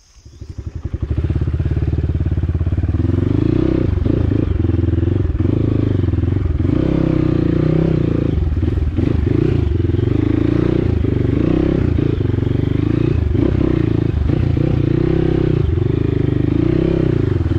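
Dirt bike engine running under load, its revs rising and falling again and again as the bike works through deep mud.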